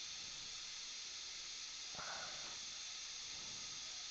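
Steady background hiss, with one faint short sound about two seconds in.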